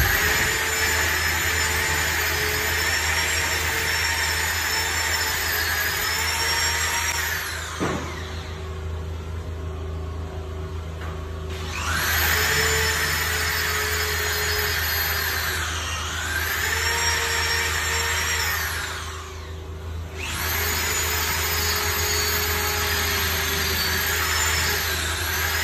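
Corded electric drill boring 5–6 mm holes into a wall for screw anchors: the motor runs at a steady high whine and spins down about eight seconds in. After a pause of a few seconds it starts again, slows briefly and picks up, stops near twenty seconds in, then starts once more.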